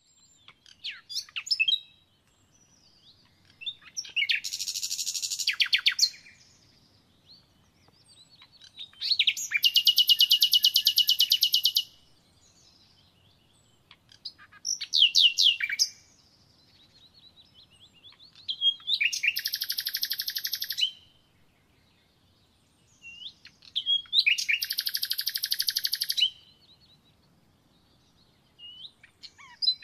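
A songbird singing: repeated phrases of a few quick high notes leading into a fast, rattling trill about two to three seconds long, four long trills in all, each followed by a pause of a few seconds.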